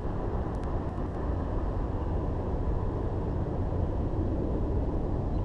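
Wind buffeting the microphone of a camera set on the ground: a steady, rumbling noise with no speech over it.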